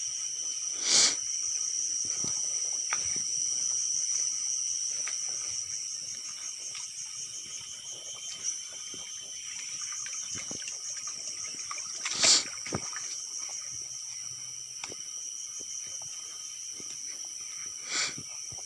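Insects shrilling steadily at a high pitch, with a rapid pulsing, over the soft irregular crunch of footsteps on a gravelly forest trail. Three short, louder scuffs stand out: about a second in, midway, and near the end.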